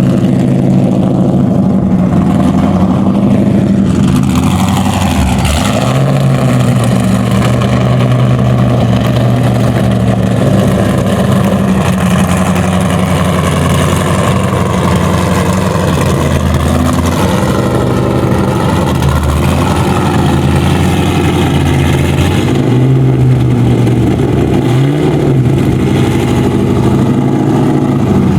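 A high-performance car engine running loud, its pitch rising and falling repeatedly as it revs and changes speed.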